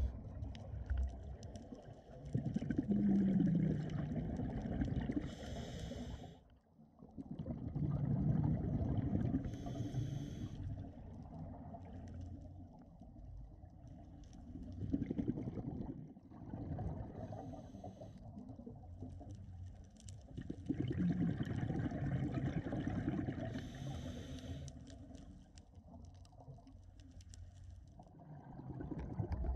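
A scuba diver breathing through a regulator, heard underwater: short hisses of inhalation alternate with longer low rumbling gurgles of exhaled bubbles, the cycle repeating every several seconds.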